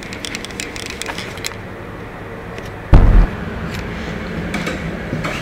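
Light clicks and handling taps, then a heavy low thump about three seconds in as a door with a lever handle is pushed open.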